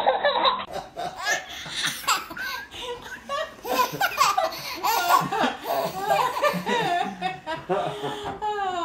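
Babies laughing hard, one belly laugh after another; under a second in the laughter switches from one baby to another.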